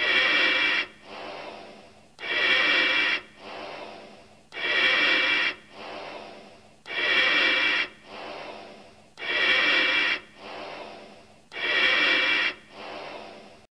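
Slow, steady breathing through a gas mask, six breaths in all, about one every 2.3 seconds. Each is a loud, raspy breath with a hollow ringing tone, under a second long, followed by a softer breath that fades away.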